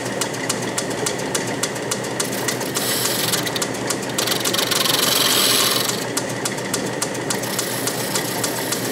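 South Bend 10-inch heavy lathe running under power, its drive belt squeaking, with a rapid even ticking. From about two and a half to six seconds in, a louder high hiss rises and falls as the tool cuts the 45-degree chamfer under hand feed of the compound.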